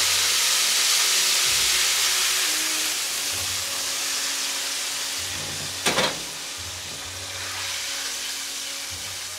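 Hot frying oil sizzling as it and strips of velveted beef are poured from a wok through a stainless steel colander, the hiss fading slowly. A sharp metal clank comes about six seconds in.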